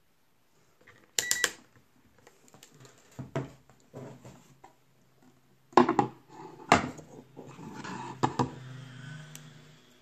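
Hands moving things about on a tabletop: sharp knocks and clicks as a wooden box is set down and a halogen spotlight in its holder is laid on it, with scraping and rustling between. The loudest knocks come about a second in and twice near the middle.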